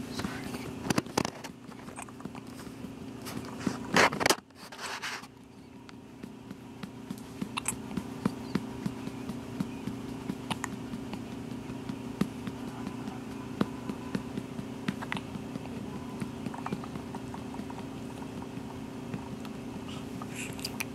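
Hiccups: short, sharp hiccup sounds repeating about every second and a half, over a steady low hum. A louder noise comes about four seconds in.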